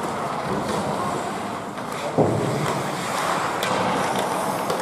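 Ice hockey play on the rink: skates scraping the ice and sticks clicking, under a steady wash of arena noise. A single loud bang against the rink boards comes about two seconds in.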